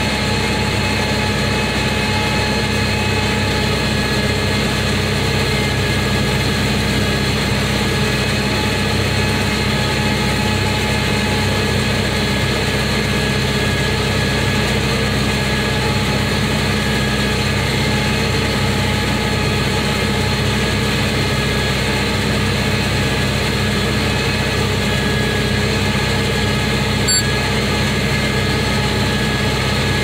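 Farm tractor engine running at a steady speed under load while it drives a round baler through the PTO, heard from inside the cab as an even, unbroken hum of several tones. A single light click sounds near the end.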